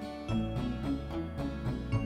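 Outro background music: gentle instrumental with plucked notes over held chords.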